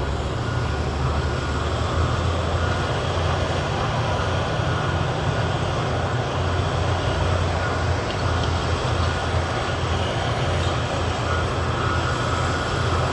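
Heavy diesel construction machinery running steadily close by, a constant low engine rumble with a noisy mechanical wash over it.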